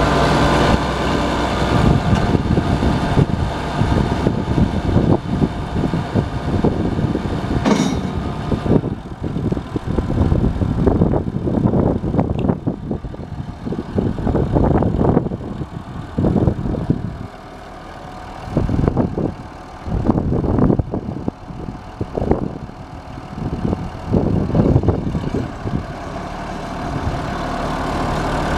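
1982 White 2-85 tractor's six-cylinder diesel engine running, with the Leon loader raising the bucket; the sound swells and dips unevenly through the middle stretch.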